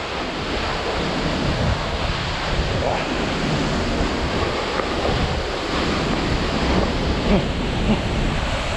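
Waterfall close by, a loud steady rush of falling water, with wind noise on the microphone.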